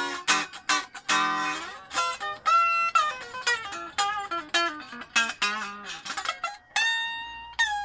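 Epiphone Les Paul Special electric guitar being picked: a quick run of single notes and short chords, with one note left ringing near the end. The guitar is being test-played on its newly fitted Graph Tech TUSQ nut.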